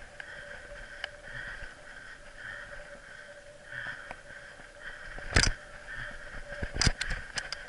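Mountain bike rolling along a dirt singletrack, heard from a camera riding on the bike or rider: steady rolling noise with two loud sharp knocks about five and a half and seven seconds in, followed by a few smaller clicks, as the bike and camera jolt over bumps in the trail.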